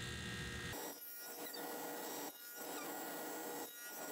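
Faint steady hum with a thin whine and hiss, briefly dropping out three times.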